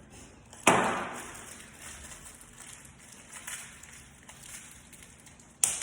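Two sharp knocks about five seconds apart, with faint handling noise between: door hardware and tools being handled and set down while fitting a striker plate.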